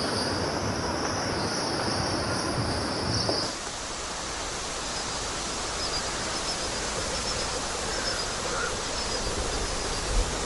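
Outdoor ambience: a steady hiss with a high, unbroken insect trill, which changes abruptly about three and a half seconds in to a quieter hiss with faint high chirps.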